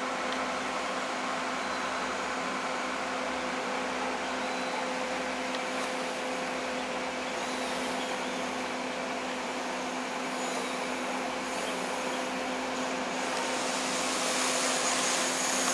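Steady mechanical hum: a constant low drone under an even whirring noise, growing a little louder near the end.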